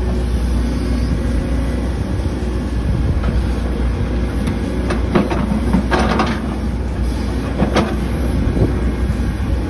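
A steady low engine rumble from machinery running throughout. A few short gritty scrapes of a shovel digging into dirt and gravel come about halfway through and again near the end.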